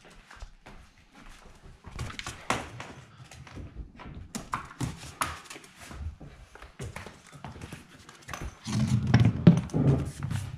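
A fox terrier puppy's claws clicking and scrabbling on a hardwood floor and furniture, with scattered light knocks. A louder low rumble with thumps comes near the end.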